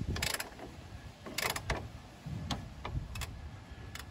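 Ratchet working the forcing screw of a bushing press, clicking in short bursts every half second or so with light knocks of metal on metal, as the press pushes the rubber insert out of a truck's lower shock bushing sleeve.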